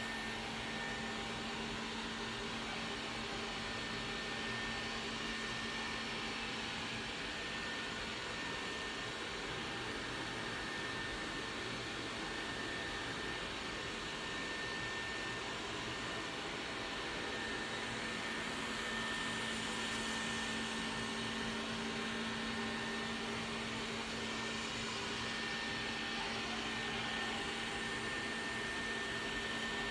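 Xiaomi X20+ robot vacuum cleaner running steadily, a continuous motor hum and airflow noise with a thin high whine over it.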